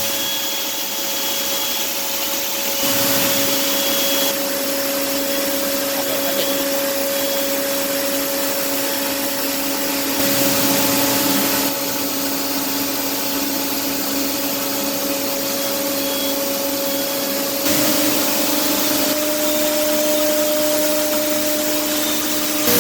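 High-speed spindle of a GT-875-5AX five-axis machining center milling a blade: a steady machine whine with a hiss over it. The noise steps up and down in loudness a few times as the cut changes.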